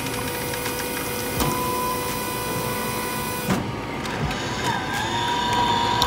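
Office bean-to-cup coffee machine dispensing an americano into a paper cup: steady machine running with a hiss from the brew. The hiss stops with a click about three and a half seconds in, leaving a lower hum and the trickle of the last coffee.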